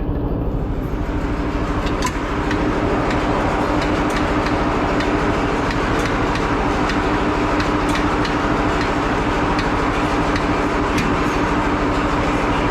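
Diesel tractor engine running steadily with an even, fast chugging rhythm.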